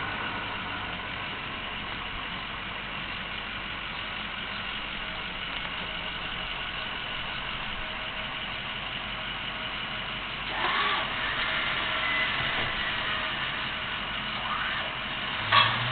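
Engine of the vehicle moving a storage building on a trailer, running steadily at idle, then picking up louder near the end.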